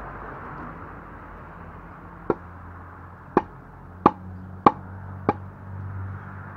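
Five sharp knocks as a foam-padded metal trampoline enclosure pole is pushed and bumped down against the ground to seat its sections together, done by hand in place of a hammer.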